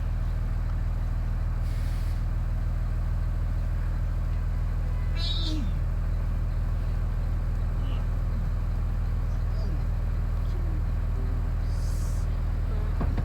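Steady low engine rumble of street traffic and idling work vehicles, with two short high hisses, one about two seconds in and one near the end, in the manner of truck air brakes.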